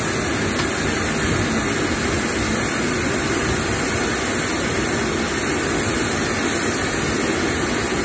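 Steady aircraft ramp noise: a constant roar with a high, steady whine, typical of turbine machinery running near the aircraft.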